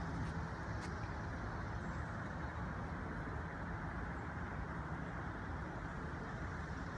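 Steady low rumbling background noise with no distinct events, and one faint click about a second in.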